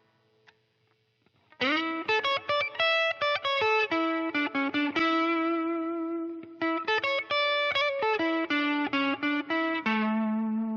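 Telecaster-style electric guitar through a lightly distorted amp, playing a single-note lead line. It starts after about a second and a half of near silence, bending up into the first note, with a long held note in the middle and a lower note sustained near the end.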